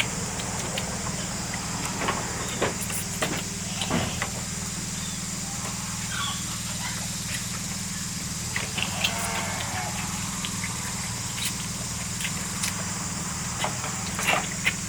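A steady low mechanical hum, like an engine idling, runs under a thin steady high hiss, with scattered small clicks.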